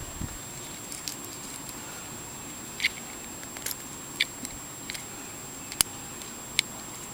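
Scattered small metallic clicks and scrapes of a warded try-out key being worked in the keyway of a laminated Master padlock, about five sharp ticks a second or so apart, over a faint steady hiss.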